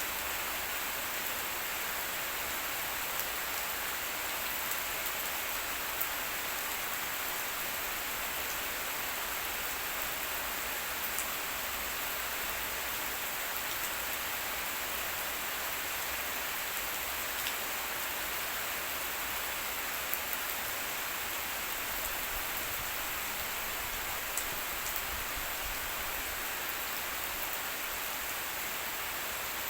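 Steady rain falling and pattering on surfaces, an even hiss with a few individual drop ticks.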